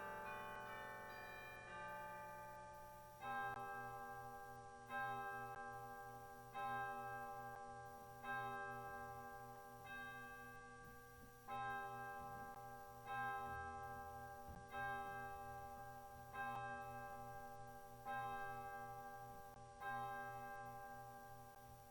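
Church bells: a peal of several bells dies away over the first three seconds, then a single bell tolls the same note about every second and a half, eleven strikes, each ringing on and fading.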